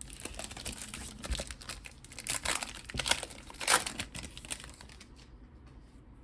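Foil booster-pack wrapper being torn open and crinkled in the hands, in a run of crackly rustles that dies away near the end.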